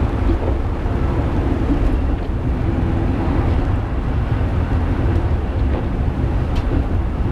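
Penang Hill funicular railcar climbing the track, giving a steady low rumble of wheels on the rails as heard from the driver's cab, with a few faint clicks near the end.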